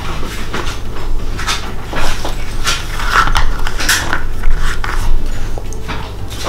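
Hard plastic doll parts and a clear plastic stand clicking, knocking and rustling as the doll is handled and set on the stand: a run of short, irregular clicks and rattles, busiest in the middle.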